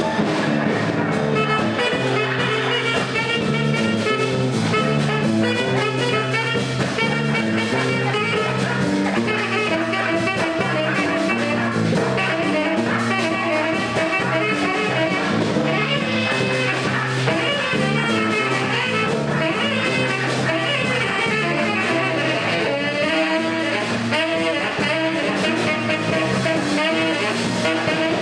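Live jazz band playing an instrumental passage: bass and drums under a steady groove, with quick melodic runs from violin and saxophone and no vocals.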